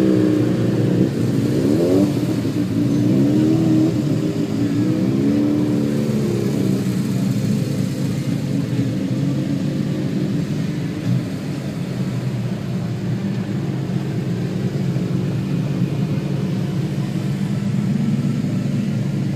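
Motorcycle engines idling in a dense queue of bikes, heard from inside a car, with revs rising and falling over the first several seconds and a steady engine drone throughout.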